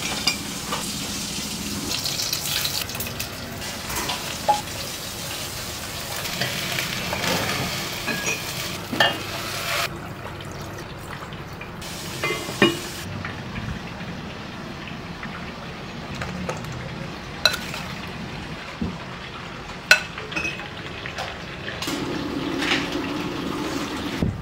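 Hot oil sizzling as food fries, with scattered clinks and scrapes of spoons, pots and lids. The sizzling hiss is loudest in the first ten seconds or so and softer after.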